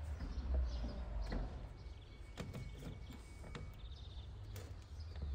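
Outdoor ambience: a low rumble under scattered light knocks and clicks, with a thin steady whistle in the middle and a few faint bird chirps near the end.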